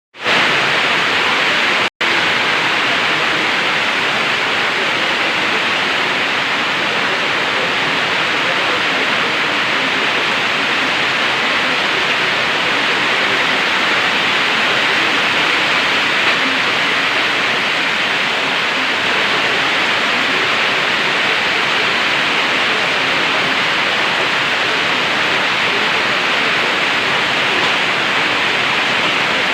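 Heavy tropical-storm rain falling steadily, a dense even hiss with no single drops standing out, broken by a momentary gap about two seconds in.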